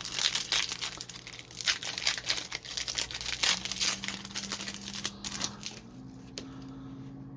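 Crinkling and rustling of a foil trading-card pack wrapper and cards being handled, in dense irregular crackles that thin out near the end. A faint steady hum runs underneath and steps up in pitch twice.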